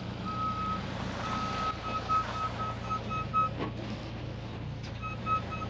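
Dump truck's reversing alarm beeping rapidly over its steady diesel engine as it backs in with a load of crusher run gravel. The beeping stops for over a second past the middle, with a brief knock, then starts again near the end.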